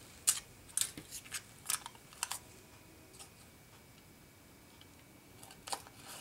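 Small scissors snipping aluminium foil folded over the edge of a card tag: several short crisp cuts in the first two seconds or so, a pause, then two more cuts near the end.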